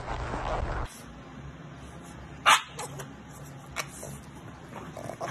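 A small dog barks: one sharp, loud bark about two and a half seconds in and a shorter one about a second later. Before that, a steady rushing outdoor noise cuts off just under a second in.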